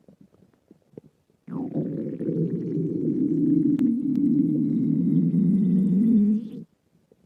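A long, loud human stomach growl lasting about five seconds, starting about a second and a half in and stopping suddenly, with a few faint gurgles before it.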